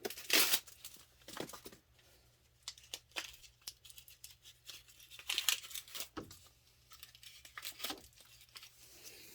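A scrap of paper being handled and torn, crinkling in a string of short, sharp rustles, the loudest about half a second in.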